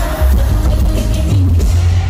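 Live concert music played loud through an arena sound system, with heavy bass.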